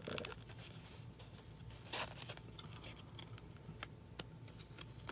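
Trading cards being thumbed through by hand, the card stock sliding and flicking against itself in a few soft, irregular rustles, with a couple of light clicks about four seconds in.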